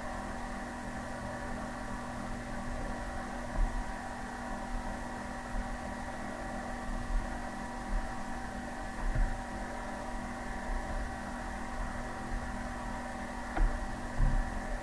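Steady background hum of several fixed tones from the recording setup, with a few faint low thumps scattered through it.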